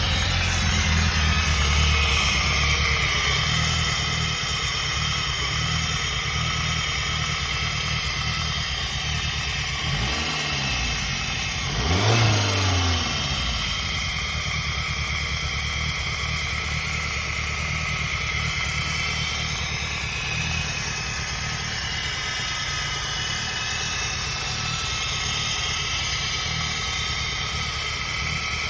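Peugeot 106 engine idling steadily, revved briefly twice about a third of the way in, the second blip the louder, then settling back to idle.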